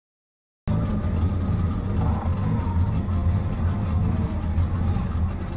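Silence for under a second, then a Volkswagen Golf GTI Mk7's 2.0 TSI turbocharged four-cylinder, fitted with an APR intake, running steadily at low revs, heard from inside the cabin.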